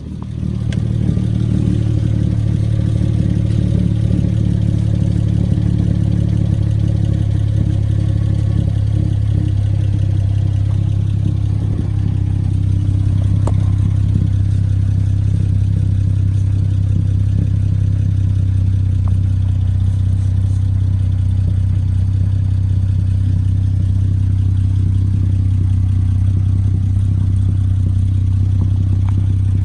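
Hyundai Genesis Coupe starting up through a freshly installed ISR race cat-back exhaust, then idling steadily with a deep, even tone. The engine is run so the new exhaust joints can be checked for leaks.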